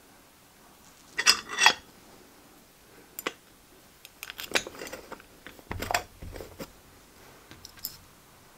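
Small metal parts clinking and clicking as a machined aluminium engine cover is fitted and its small screws are driven in with a hex key. A bright metallic clink with a short ring comes about a second in, followed by scattered light clicks and taps.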